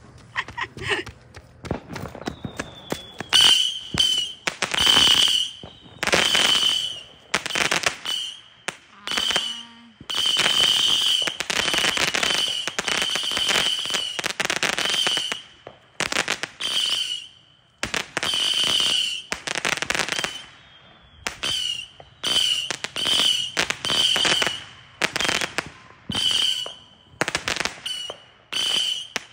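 Consumer firework cake on the ground firing a long string of shots into the air, starting about three seconds in, each shot a short whistling hiss, some close together and some a second or two apart.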